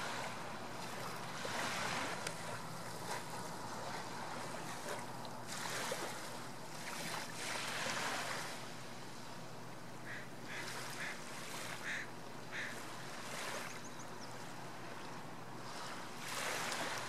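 Small waves lapping on calm seawater, a steady wash that swells every couple of seconds. A few short, high chirping calls come about ten to thirteen seconds in.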